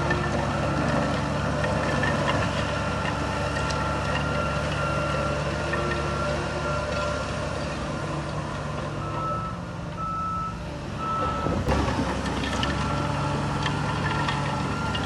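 Heavy earthmoving machine's backup alarm beeping over its running diesel engine, with occasional metal clanks.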